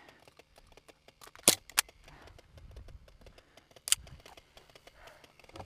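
Three sharp clicks: the loudest about a second and a half in, a second one just after it, and a third near four seconds. Faint rustling of grass and gear runs beneath them.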